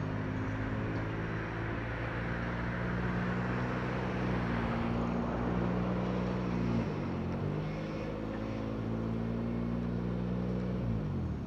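An engine running steadily. Its pitch dips and recovers about seven seconds in, then falls away as it winds down near the end.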